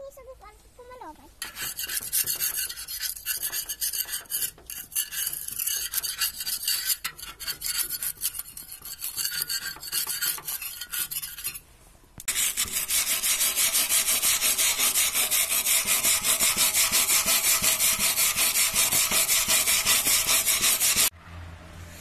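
Rust and flaking paint being scraped off the steel drum of a concrete mixer. Irregular rasping strokes run for several seconds; then, after a short pause about halfway through, comes a louder, steady, fast-repeating rasp that cuts off suddenly near the end.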